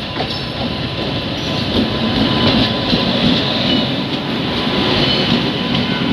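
Indian Railways express train running along the rails, wheel-on-rail noise growing louder over the first couple of seconds, with a few faint ticks.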